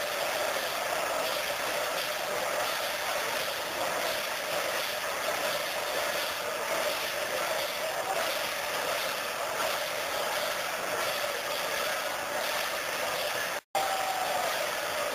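Steady din of a large outdoor crowd, many voices blending into one continuous wash. A split-second gap near the end where the recording cuts.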